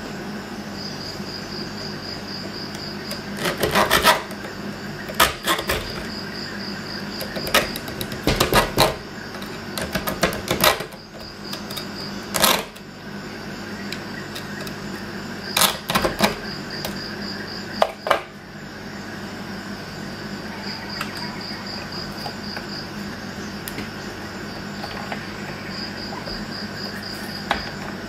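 Scattered sharp metallic clicks and knocks, in short clusters over roughly the first eighteen seconds, as a Leatherman multi-tool and a small bench vise are handled. Crickets chirp steadily throughout.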